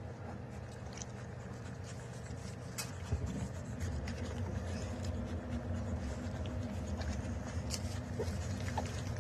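Week-old puppies making small squeaks and grunts over a steady low hum that grows slightly louder about three seconds in.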